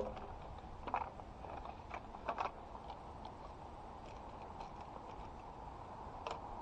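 Faint background noise with a handful of soft, short clicks or taps spread through it.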